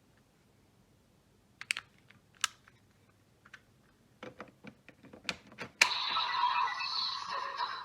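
A run of small plastic clicks from a toy's buttons and parts being handled, then, about six seconds in, an electronic sound effect plays from the toy's small speaker for about two seconds.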